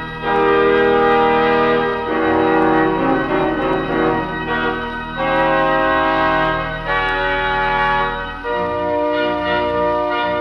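A 4/21 Wurlitzer theatre organ playing held chords that change about every second or two. It is heard from a 1934 Columbia 78 rpm record, with a low steady hum beneath the music.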